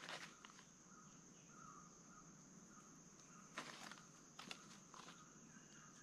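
Faint forest ambience: a steady high insect drone, with a few soft clicks and rustles a little past the middle as a rubber-band slingshot is handled.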